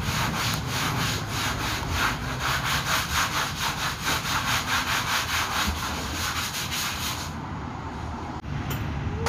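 Ratchet wrench clicking in a fast, even rhythm as the transmission (CVT) cover bolts are run in; the clicking stops about seven seconds in, and a single sharp click follows near the end.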